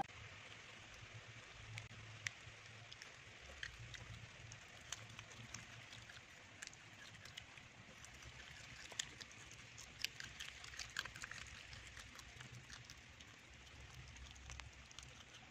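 Faint, irregular crunching clicks of a Shih Tzu chewing kangkong (water spinach) leaves and stems.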